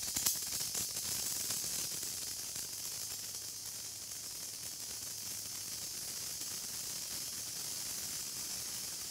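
Senko hanabi incense sparkler burning: its glowing dross ball gives a steady, high, faint hiss, with a few small crackles in the first second.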